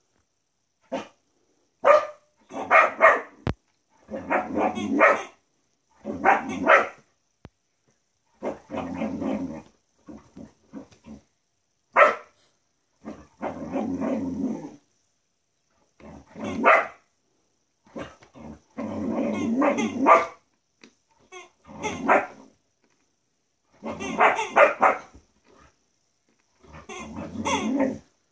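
Dog playing with a squeaky chicken toy: the toy's squeaks and the dog's barking and growling come in about a dozen short bursts, one every second or two.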